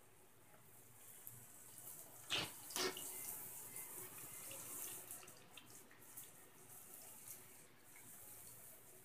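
Flour-coated potato chips dropped into hot oil and sizzling. Two sharp, loud bursts come about two and a half seconds in as the potatoes go in, then a steady crackling sizzle of deep-frying.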